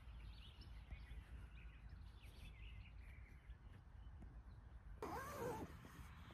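Faint outdoor ambience with small high chirps, then about five seconds in a single louder animal call, under a second long, that rises and falls in pitch.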